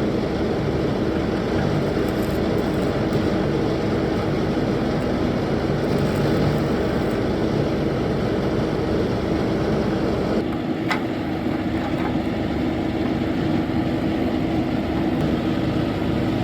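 An engine running steadily with a constant low tone; a higher hiss over it drops away about ten and a half seconds in.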